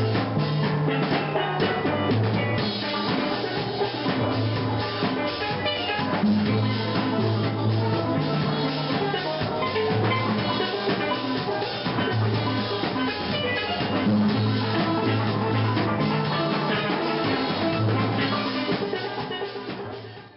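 Live steel band playing: steelpans ringing out a melody over a low repeating bass line, with drum kit beats throughout. The music fades out near the end.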